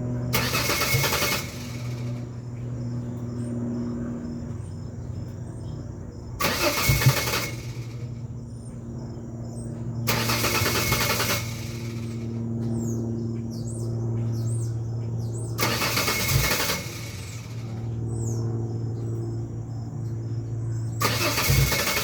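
2001 Ford Ranger's 4.0 V6 being cranked over on a cold morning start without catching, the hard-start fault its owner is chasing: a steady cranking hum broken about every five seconds by a loud noisy burst lasting around a second.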